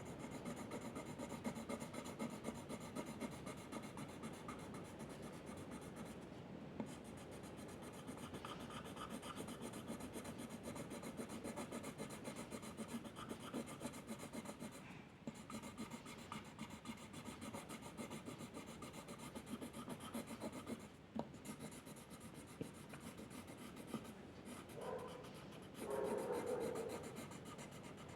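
A drawing tool scratching and rubbing on paper in continuous strokes, with short pauses between strokes. Near the end come a couple of louder, squeaky strokes.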